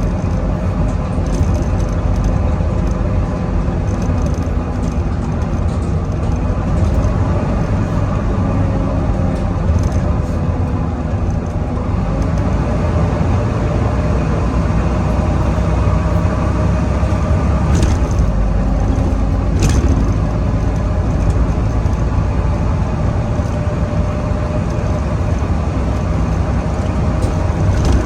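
Volvo B9TL double-decker bus's diesel engine running under way, with a steady rumble and a 'hoover' whine over it that slowly drifts up and down in pitch as it is driven hard. A couple of sharp clicks or knocks come about two-thirds of the way through.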